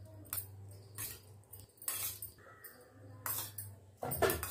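Steel spoon clinking and scraping against a steel bowl and plate about five times as curd is spooned out, the loudest clink near the end.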